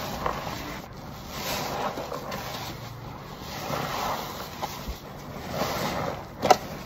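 A perforated car wash sponge, soaked in thick laundry-detergent foam, squeezed by gloved hands: wet squishing of lather that swells and eases with each squeeze, with one sharp click near the end.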